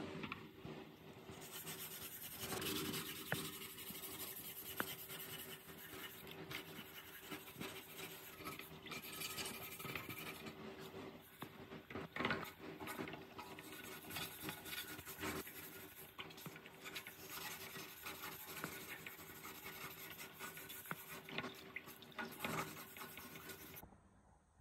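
Metal putty knife scraping thick old grease off a steel saw blade guard, in irregular strokes, with the blade wiped into a plastic bowl between scrapes. The scraping stops suddenly just before the end.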